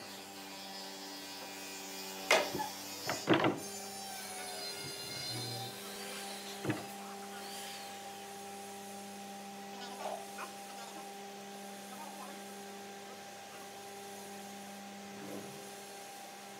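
Heavy hardwood slabs knocking and thudding against each other and the supports as they are handled: a loud cluster of knocks a couple of seconds in, another single knock a few seconds later, then lighter bumps. A steady electrical hum runs underneath.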